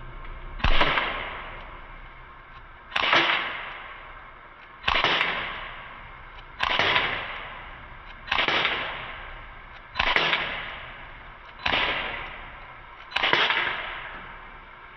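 CO2-powered BB gun fired eight times at a steady pace, a shot every second and a half to two seconds, each a sharp crack with a tail that fades over about a second.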